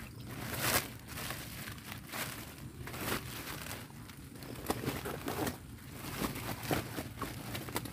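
A white sack rustling and crinkling as it is handled and opened, in irregular rustles with a few sharper crumples.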